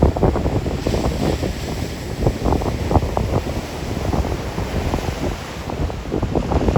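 Wind buffeting the microphone in low, uneven gusts over rough storm surf breaking and washing up the beach. The hiss of the wash swells about a second in.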